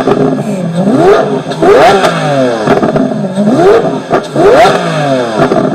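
Engine revved in repeated quick blips, about once a second, each rising sharply in pitch and then falling back.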